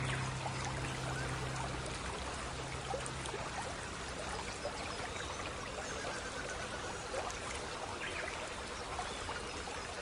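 Water from a small tabletop paludarium waterfall trickling and splashing steadily into its pool, with many small drips. A held low note left over from the music fades out about three and a half seconds in.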